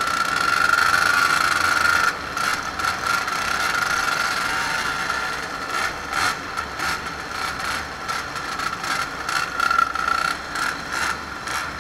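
Small moped engines running as a large group of mopeds rides along, with a steady high engine whine and frequent short rattles and clatters.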